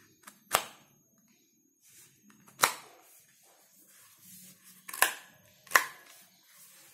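Leaf Bass 2 wireless over-ear headphones being handled: four sharp plastic clicks, a second or two apart, as the headband and folding ear-cup joints are worked by hand, with soft handling rustle between.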